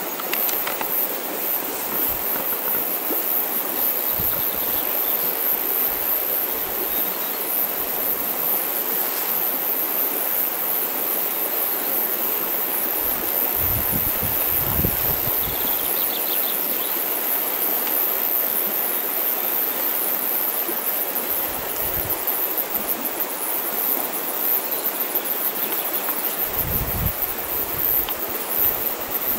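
Steady rush of flowing water with a constant high-pitched insect drone above it. A few low knocks, about halfway through and near the end, come from the camera being handled.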